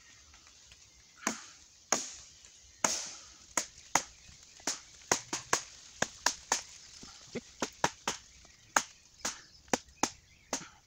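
Wooden baton striking the spine of a Tramontina machete to drive it down through a log round (batoning): a long series of sharp knocks at an uneven pace, some coming in quick runs of two or three.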